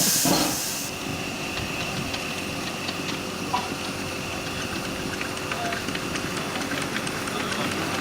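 Steam hissing from a miniature live-steam locomotive: a loud high hiss cuts off about a second in, leaving a quieter steady hiss with scattered light ticks.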